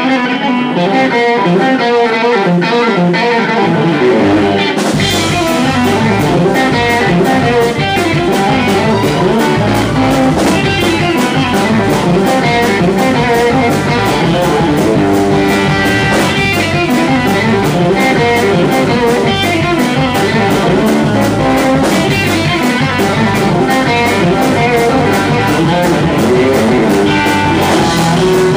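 Live band playing: a Telecaster-style electric guitar runs fast picked lead lines, alone at first, then bass guitar and drum kit come in about five seconds in and the full band plays on.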